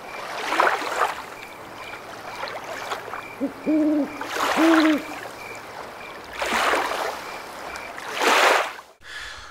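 An owl hooting twice, about a second apart, near the middle, between several swells of rushing noise.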